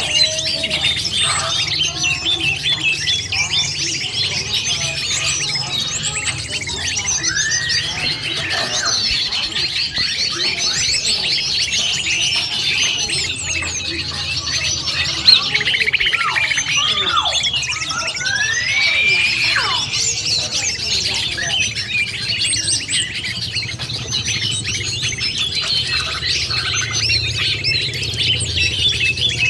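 Dense chorus of many small birds chirping and twittering over one another, mixed with the slurred, rising and falling whistles of a cucak ijo (green leafbird), a few of them standing out at about 8 and 19 seconds. It is a 'noisy birds' lure mix for calling in wild cucak ijo, with a steady low hum underneath.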